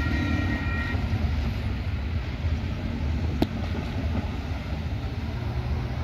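Level crossing warning bells ringing, cutting off about a second in as the barrier arms lift. After that comes a steady low rumble of cars and vans driving over the crossing, with a single sharp click about three and a half seconds in.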